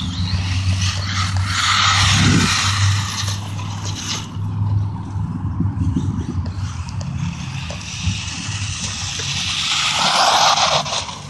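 A HobbyKing Rattler RC car with a 540-size 2700 kV brushless motor driving on slippery ground, its tyres scrabbling over the surface. It gets louder about two seconds in and again near the end as it comes by.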